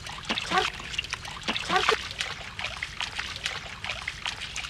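Bare feet wading through shallow muddy floodwater: a run of irregular small splashes and trickles.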